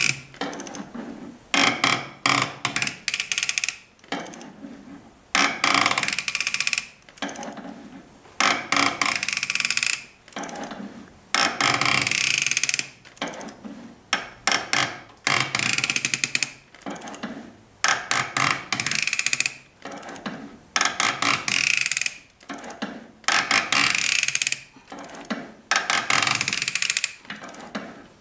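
Hand ratchet clicking in short runs about every two seconds as it is worked back and forth on a glow plug removal tool, drawing a stuck glow plug out of an OM642 V6 diesel's cylinder head.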